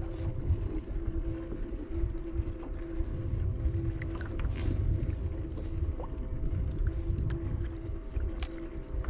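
Wind buffeting the microphone and small waves slapping a plastic kayak hull on open sea, with a faint steady hum underneath.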